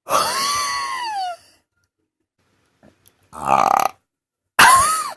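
A person burping: a long burp of about a second and a half whose pitch falls at its end, then two shorter burps, one about three and a half seconds in and one near the end.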